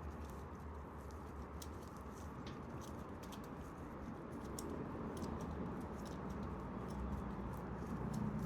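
Scattered light clicks and ticks from a chain breaker tool and a motorcycle drive chain being handled and adjusted, over a steady low hum.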